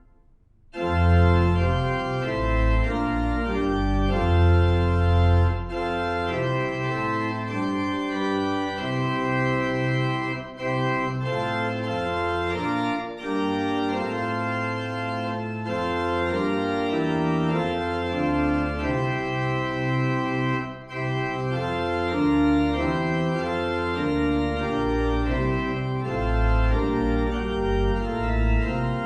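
Organ playing slow, held chords over a moving bass line, starting about a second in after a brief pause.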